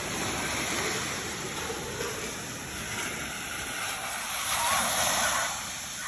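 Small ocean waves breaking on a sandy beach and washing up the shore, with a louder surge of surf about four and a half seconds in.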